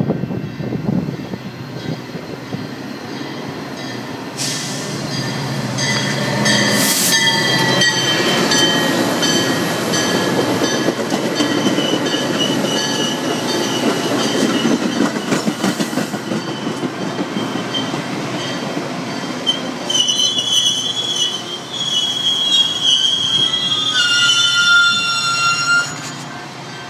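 Metra commuter train's stainless-steel passenger cars rolling into the station alongside the platform, wheels rumbling and squealing in several high steady tones. The squeal grows more insistent as the train slows, and the noise drops away near the end as it comes to a stop.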